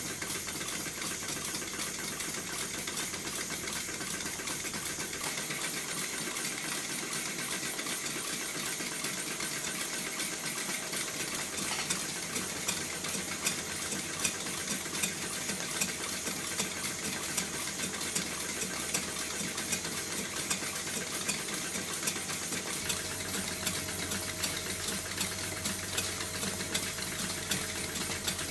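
Five Stuart model steam engines, among them a Stuart Victoria horizontal mill engine, running together on compressed air: a steady, busy clatter of many overlapping beats and ticks, with sharper ticks standing out from about halfway through.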